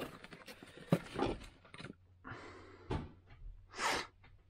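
Close-up handling noise while wiring is worked on: irregular rustling with small clicks and knocks, and a short hiss near the end.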